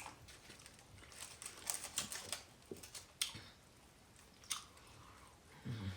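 Soft chewing and mouth clicks from someone eating fufu, a few sharper smacks scattered through, and a brief low vocal sound near the end.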